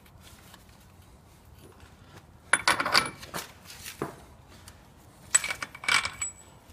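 Two short hisses from an aerosol can of WD-40, one about two and a half seconds in and another about five seconds in, each lasting under a second.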